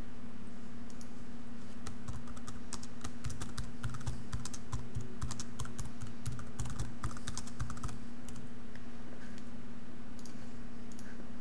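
Typing on a computer keyboard: a quick run of key clicks that thins out after about eight seconds, over a steady low hum.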